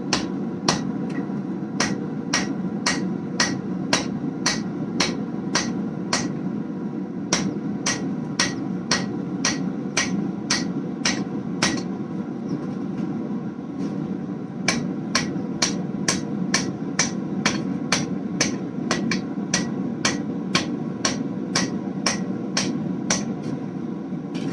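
Hand hammer striking a hot 1095/15N20 damascus bar on an anvil, about two ringing blows a second, rounding over the corners of the square bar before twisting. The hammering pauses briefly about halfway, over a steady low rushing noise.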